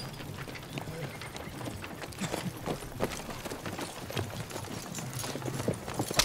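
Horse-drawn carriage approaching, with horse hooves clopping on a dirt road in an uneven run of knocks and a sharper knock near the end.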